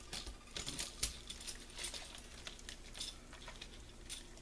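Small spray bottle of freshly mixed pigment paint being shaken up, a quick irregular clicking and rattling that thins out after about three seconds.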